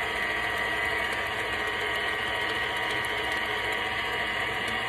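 Electric mixer running steadily with a thin whine, beating the pound-cake batter of sugar, butter, buttermilk and flavor extracts.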